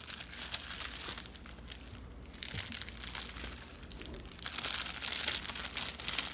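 Packaging crinkling and rustling as a wristwatch is unwrapped by hand. It is quieter for a moment mid-way and grows louder again for the last couple of seconds.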